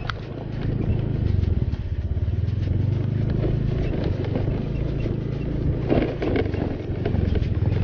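Small Honda motorbike engine running steadily at low speed on a rough dirt track, with a brief rattle about six seconds in.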